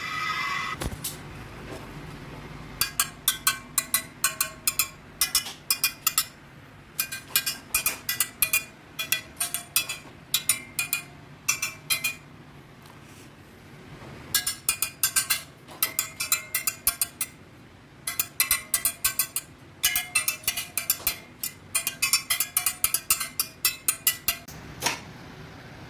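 Steel spokes of a motorcycle wire wheel being tapped one after another, each giving a short metallic ping. The pings come in runs of about three or four a second, with pauses between the runs.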